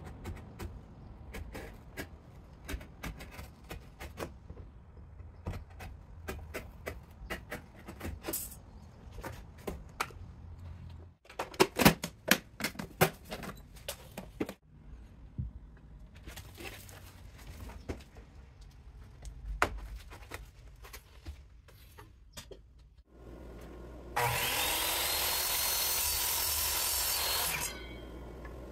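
Cardboard being handled and taped, with scattered clicks, rustles and a few louder knocks. Near the end a chop saw runs and cuts through a wooden board for about three and a half seconds, then stops abruptly.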